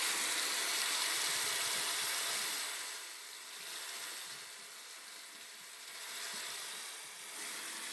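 Tap water running into a bathroom sink, louder for the first couple of seconds, then quieter with slow swells as the flow changes.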